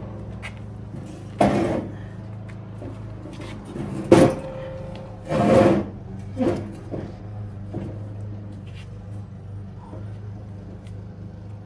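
A heavy bullbar being manhandled against a ute's front: a few knocks and scrapes of metal, the sharpest about four seconds in with a short ring after it, over a steady low hum.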